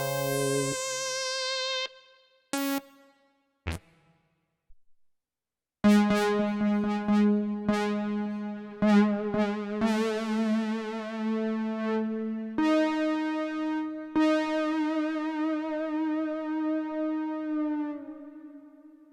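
Kurzweil K2VX synthesizer preset played on the keyboard: a held chord, two short stabbed notes, then after a short gap a long held chord with a wavering vibrato that changes notes several times and fades away near the end.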